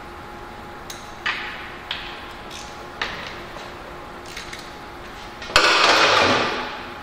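A few sharp metallic clicks from a wrench loosening a motorcycle's oil drain plug. Then a sudden loud rush of warm engine oil pouring and splashing into a metal drain pan as the plug comes out, fading over about a second.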